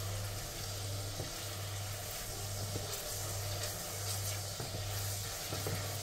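Sliced onions sizzling as they fry in a steel pot, stirred with a wooden spoon. Under the sizzle, a low hum pulses on and off a little more than once a second.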